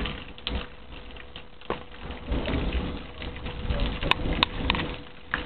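Heavy rain falling in a thunderstorm, a steady patter with scattered sharp clicks and a few low thumps.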